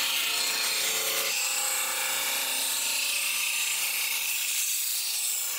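Ryobi benchtop drum sander running, sanding a thin strip of wood fed through under its drum: a steady, high sanding hiss.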